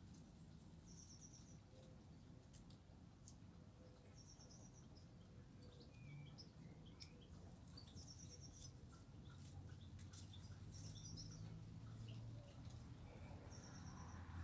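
Faint outdoor ambience: small birds chirping in short, high trills every couple of seconds, over a low rumble that grows louder near the end.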